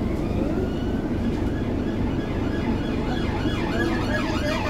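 Steady low rumble of an idling bus heard from inside the passenger cabin. About three seconds in, an emergency vehicle's siren comes in, its pitch sweeping rapidly up and down and growing stronger toward the end.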